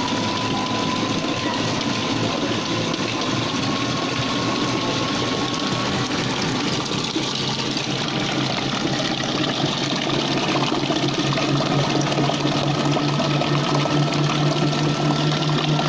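Electric motor running under load, its thin whine rising slowly in pitch as it speeds up, driving a belt and propeller shaft that churn and spray water in a test tank.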